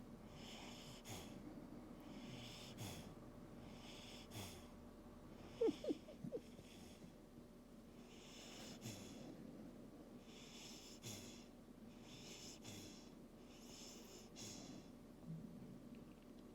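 Wheezy, hissing breathing in sleep, one breath about every one and a half to two seconds, with a few short high squeaks about six seconds in: the odd noises he makes in his sleep.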